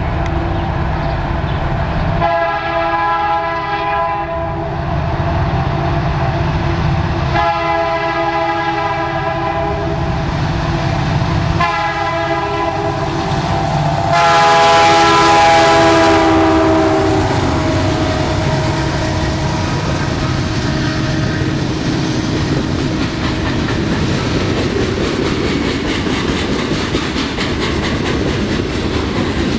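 Lead diesel locomotive of a CN freight train, an EMD SD75i, sounding its horn in the grade-crossing pattern: two long blasts, a short one, then a final long blast that is the loudest and drops in pitch as the locomotive passes. Under the horn the diesel engines rumble, and afterwards the freight cars roll by with a clickety-clack of wheels on rail joints.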